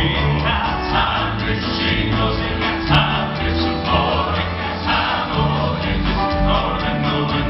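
Male southern gospel vocal ensemble singing together live in close harmony, backed by keyboard, guitar and upright bass through a concert sound system.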